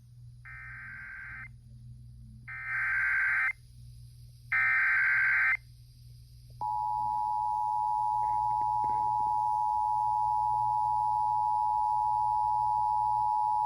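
Emergency Alert System activation: three one-second bursts of digital SAME header data tones, then, about halfway through, the steady two-tone EAS attention signal begins and holds. Together they announce a severe thunderstorm warning.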